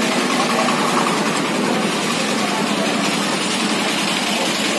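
Steady hum of engines and traffic with faint, indistinct voices: the background din of a street market.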